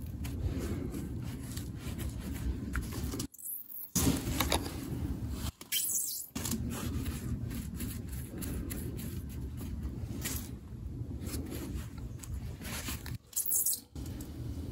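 Scraping and rustling handling noise close to the microphone over a steady low rumble, cut three times by brief drops to near silence.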